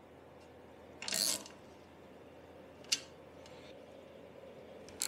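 Hand socket ratchet clicking in short bursts while bolts are tightened on a scooter frame bracket: one burst about a second in, a single sharp click near three seconds, and another burst at the end.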